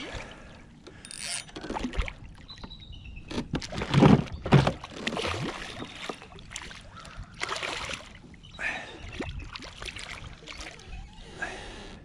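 Hooked catfish thrashing and splashing at the water's surface beside a kayak, in irregular bursts, the loudest about four seconds in.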